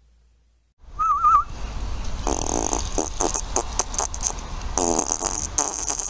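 A long string of loud fart noises, each made of rapid pulses, starting about a second in with short gaps between them. A brief wavering whistle-like tone comes at the very start of the string.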